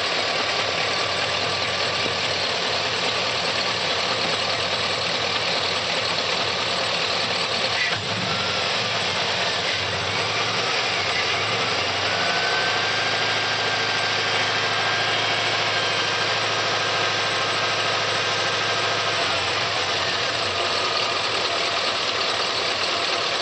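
A 2004 Chevrolet Silverado's 6.0 L V8 idling with a ticking from the valvetrain. The tick persists even though the lifters have been replaced.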